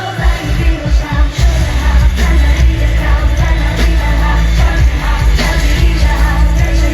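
Live pop dance music with singing and a loud concert sound system. A heavy bass beat comes in just after the start and drives on steadily.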